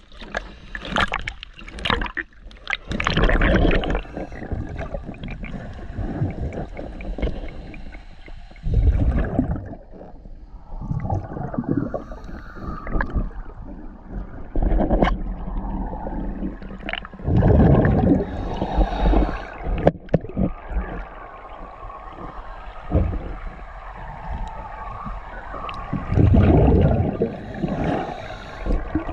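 Underwater gurgling and bubbling, with louder bursts of exhaled bubbles from a diver's regulator every several seconds.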